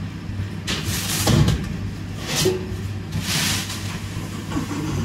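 A steel hotel pan scraping and sliding over a stainless steel counter in a few short strokes, over a steady low hum.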